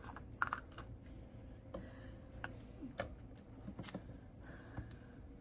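Faint, scattered clicks and light taps of a small cosmetics product box being handled and opened.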